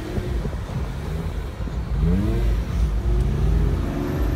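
Car engine revving while the car slides around on snow, with the pitch climbing in short rises about halfway through, over a steady low rumble.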